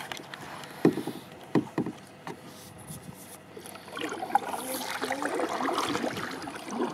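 Kayak paddling: a few sharp knocks of a paddle against the kayak hull about a second and a second and a half in. From about four seconds in, water splashes and sloshes with the paddle strokes.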